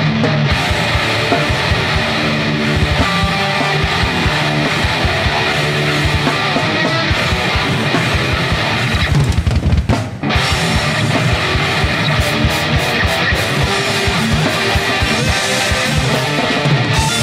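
A live rock band playing loud: distorted electric guitars and bass over a drum kit, with no singing. The band dips briefly about ten seconds in, then comes straight back in.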